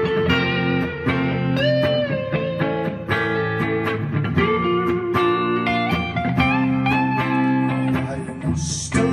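Two electric guitars playing together, one picking a melodic lead line with a few bent notes over the other's sustained chords.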